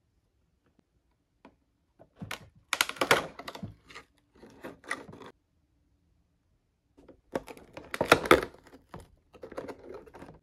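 Clicking and crinkling of plastic blister packs and cardboard as small toy packages are handled and pulled out of a cardboard display box, in two bouts of rapid clicks with a quiet gap between them.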